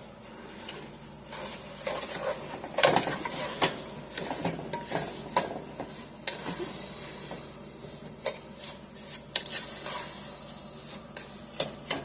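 A spoon clinking and scraping in a pot while stirring melting butter, sugar and spices, with a light sizzle underneath.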